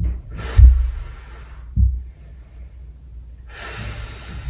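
A person breathing deeply close to the microphone while stretching: a loud breath with a low thump about half a second in, a softer low thump near two seconds, and a longer breath of about a second near the end.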